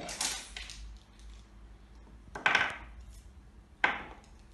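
Plastic felt-tip markers clattering as they are picked up and dropped into cardboard-tube pencil holders: a rattle right at the start, then two sharp clatters about two and a half and four seconds in.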